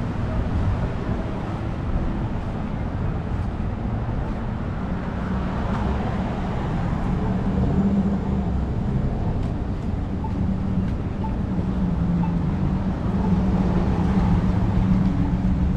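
City street traffic: a steady drone of vehicles running along the road, swelling slightly as something passes about halfway through and again near the end.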